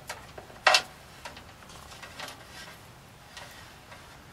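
Scattered small clicks and ticks, with one sharp click about a second in, from hands handling the backup-camera wire and fastening it along the truck's underbody.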